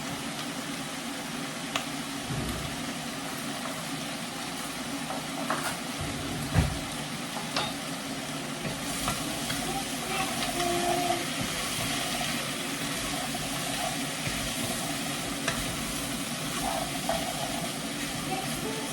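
Carrots and potatoes with curry powder sizzling in a pot as they are stirred, with scattered clicks of the spoon against the pot and one louder knock about six and a half seconds in.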